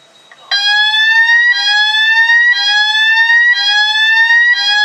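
Fire alarm sounder in full evacuation mode, starting about half a second in: a loud rising sweep tone, repeated about once a second.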